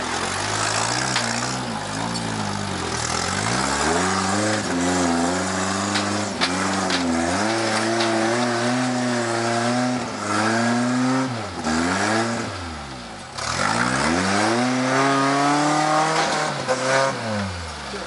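Rock crawler pickup's engine revving hard in repeated surges, pitch rising and falling again and again as it climbs a steep rock ledge under heavy load. A few sharp knocks come about six to seven seconds in.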